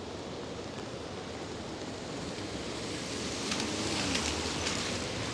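Steady hiss of pouring rain and traffic on wet city streets, swelling in the second half as tyres spray over wet pavement, with a few sharp splashes or ticks near the loudest point.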